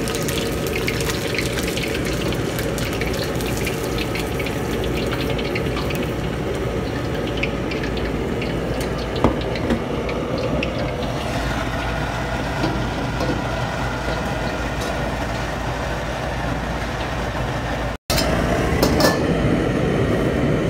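Battered chicken pieces deep-frying in hot oil in a steel wok: a dense sizzle and crackle over a steady low roar from the commercial gas wok range. The crackle thins out in the second half, and a couple of metal clinks come near the end.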